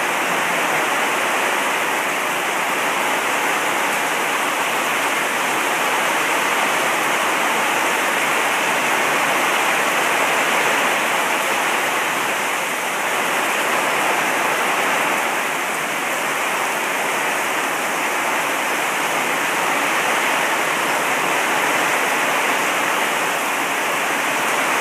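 Rain pouring down steadily, a constant hiss of falling water.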